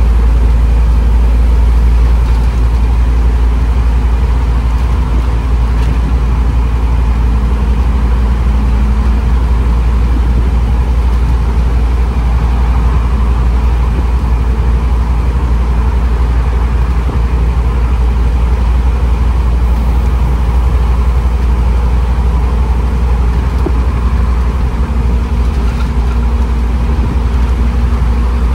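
Scania N230UB OmniCity bus's diesel engine running with a steady low drone, no revving.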